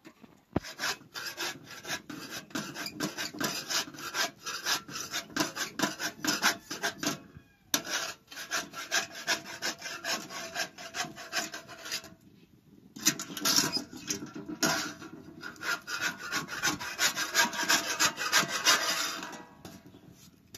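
Quick, regular back-and-forth scraping strokes, several a second, like rubbing, rasping or hand-sawing. They pause briefly twice and stop shortly before the end.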